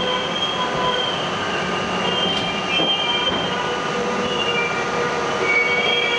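R42 subway car running through the tunnel, heard from inside the car: a steady rattling rumble of wheels on rail, with the wheels squealing in several high, steady tones that fade in and out.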